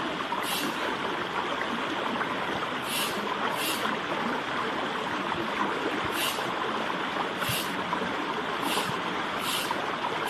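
Flowing stream: a steady rush of running water, with short brighter spurts of higher sound every half second to second and a half.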